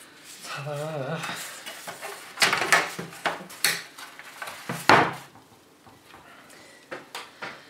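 Hands handling an opened LCD TV chassis and its cables: a run of sharp clattering knocks and clicks, thickest a couple of seconds in, with a few lighter clicks near the end.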